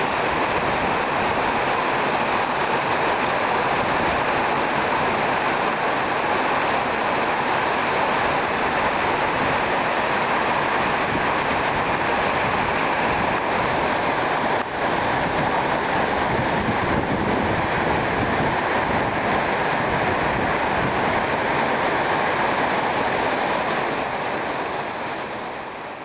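Tall waterfall rushing: a steady, dense roar of falling water. It dips briefly about halfway through and fades out at the end.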